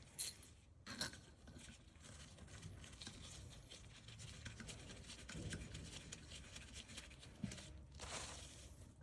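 Quiet room tone with a few faint clicks and light rustling, like small parts being handled.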